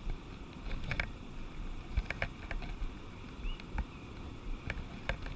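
Wading upstream through a small stream: water running and sloshing around the legs, with scattered sharp clicks at irregular times.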